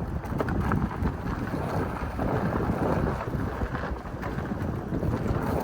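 Pickup truck driving slowly: a steady low rumble of engine and tyres, with wind noise on the microphone.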